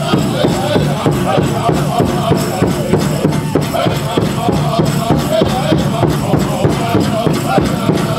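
Powwow drum group singing a men's chicken dance song in high voices over a fast, even beat on the big drum.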